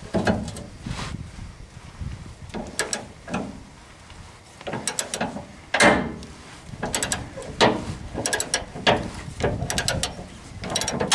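Ratchet wrench clicking in repeated short runs, stroke after stroke, as it works loose a tight fuel-tank strap bolt.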